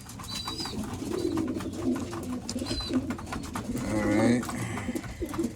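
Domestic pigeons cooing in a loft, with a few short high chirps and many light clicks and taps.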